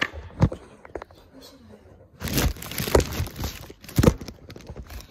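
Handling noise from a phone filming up close: sharp knocks in the first second, then about a second and a half of rough rustling and rubbing with more knocks, as hands grab and move it.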